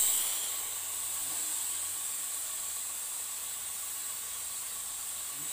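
Fine water spray hissing steadily from a garden-hose mist nozzle as it wets straw mushroom beds, a little quieter after the first half second.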